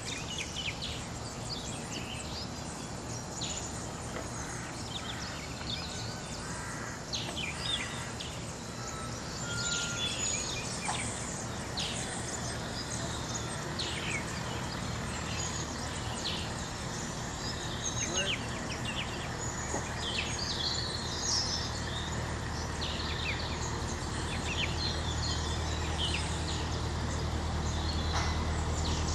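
Birds chirping and singing over the low, steady running of a narrowboat engine, which grows louder over the last several seconds.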